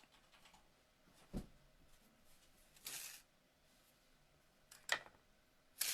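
Faint, sparse handling noises in a quiet room: a soft low thump about a second and a half in, a brief rustle around three seconds, a click near five seconds and another short rustle at the very end.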